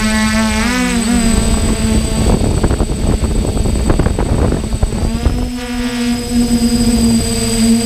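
DJI hexacopter's electric motors and propellers whining, heard from a camera mounted on the drone, the pitch wavering and beating as the motors change speed. From about two seconds in, gusty wind noise on the microphone swamps the whine for a few seconds, then the whine comes back steady near the end.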